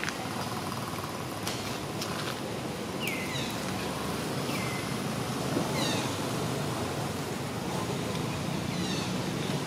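Short high-pitched animal calls that slide down in pitch, heard several times over a steady background hiss, with a few sharp clicks about one and a half to two seconds in.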